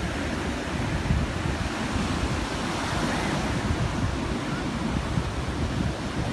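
North Sea surf breaking and washing through shallow water in a continuous rush, swelling a little about halfway through, with wind buffeting the microphone in a low, gusty rumble.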